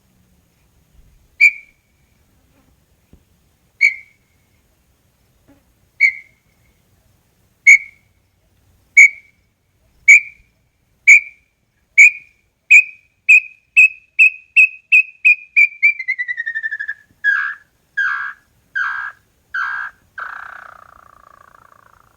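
Small-billed tinamou (inhambu-chororó) singing: clear whistled notes, at first a couple of seconds apart, come faster and faster until they run together into a quick trill that falls in pitch. The song ends with about five lower, longer notes, the last one trailing off.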